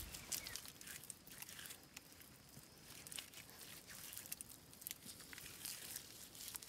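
Hands patting and smoothing wet clay mud: faint, scattered small wet clicks and squelches.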